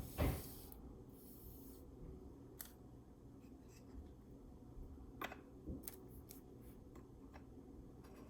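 Baseball trading cards being handled: a sharp knock right at the start, then cards sliding and rubbing against each other with a few light clicks.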